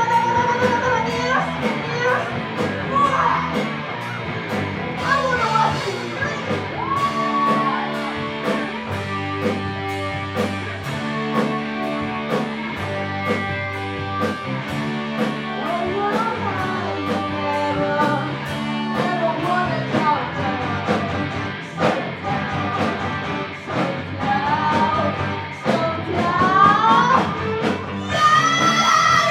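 Live rock band playing with a sung lead vocal: drums keeping a steady beat under bass, electric guitar and keyboard.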